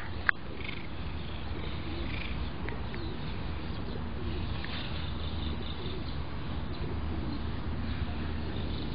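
Outdoor background: a steady low hum with faint bird calls scattered through it, and a single sharp click about a third of a second in.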